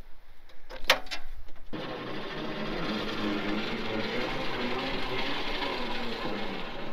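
Trailer-mounted Harbor Freight winch running steadily as its cable is paid out, starting suddenly about two seconds in after a sharp click.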